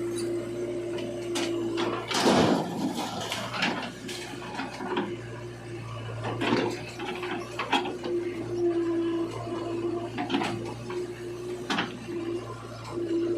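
JCB 3DX backhoe loader working: its engine runs steadily with a whine that comes and goes, broken by a series of clunks and one loud rushing noise about two seconds in.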